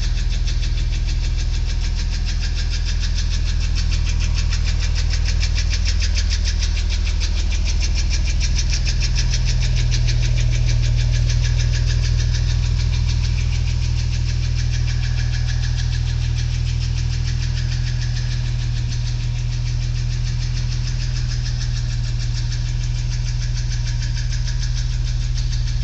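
Porsche Boxster 986 flat-six engine running steadily, with a fast, even metallic knocking tick over the engine note. The owner suspects piston slap against the cylinder head at top dead centre, or possibly worn hydraulic valve lifters.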